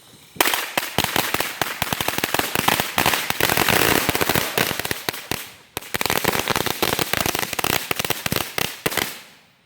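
Firecrackers going off in a rapid, dense string of bangs that starts about half a second in, breaks off briefly past the middle, then starts again and dies away near the end.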